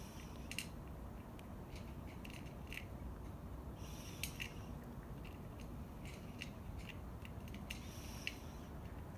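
A cat chewing its food: irregular small crunching clicks, faint and uneven.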